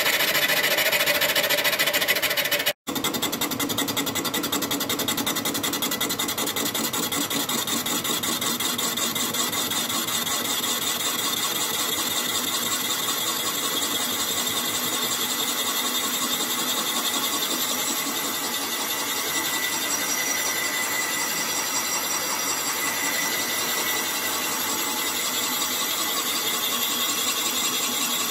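Metal lathe turning a boring bar that cuts the bore of a rusty iron cylinder casting: a steady mechanical whirr with a high ringing note, broken for an instant about three seconds in.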